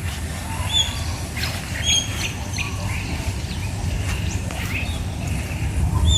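Birds chirping: short, repeated calls about once a second over a steady low rumble.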